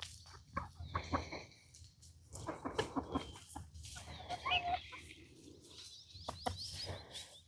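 Backyard hens clucking quietly, among scattered clicks and rustling. Thin high chirps of small birds come in near the end.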